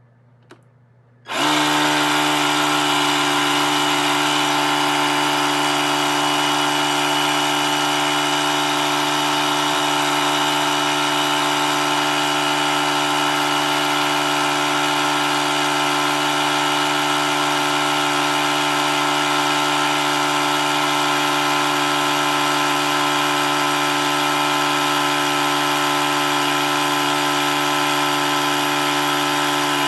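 Etenwolf Vortex S6 cordless tire inflator starting about a second in and then running steadily, its compressor giving an even, pitched hum as it pumps up a small tire.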